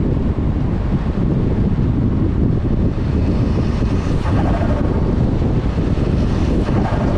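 Volkswagen Golf R (MK6) driving, giving a steady low rumble of engine and road noise, with wind buffeting the microphone.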